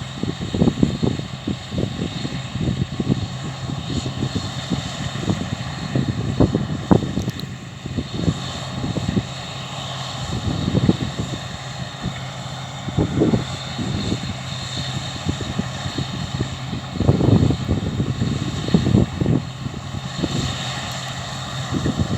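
Massey Ferguson Cerea 7278 combine harvester working in the field, its engine and threshing gear giving a steady drone. Irregular low rumbles of wind buffet the microphone throughout.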